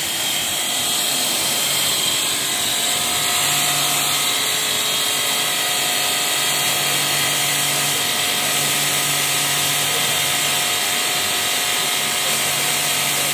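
Bosch electric pressure washer running under load, spraying a high-pressure water jet: a steady whine from the motor and pump over the loud hiss of the spray.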